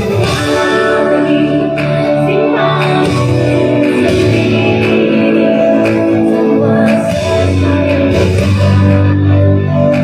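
Music: a song with guitar and a singing voice.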